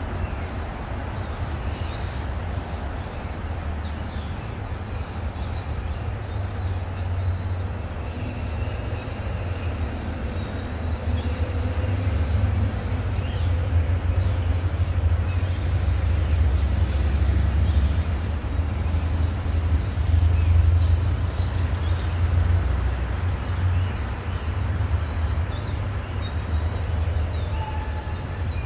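City street ambience: a steady low rumble of road traffic that swells for several seconds in the middle and then eases off.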